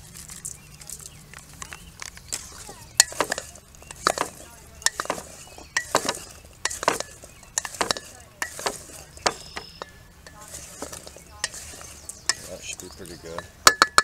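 Wooden spoon stirring diced potatoes coated in oil and taco seasoning in a stainless steel mixing bowl: irregular scrapes and knocks of the spoon against the metal, with a few sharper knocks near the end.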